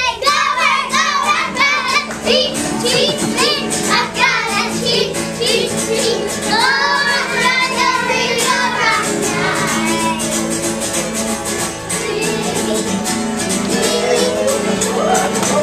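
A group of young children singing a song together over instrumental accompaniment with a steady beat.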